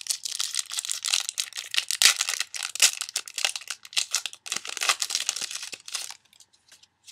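Foil Pokémon trading-card booster pack wrapper crinkling and tearing as it is opened by hand, a dense run of sharp crackles that stops about a second before the end.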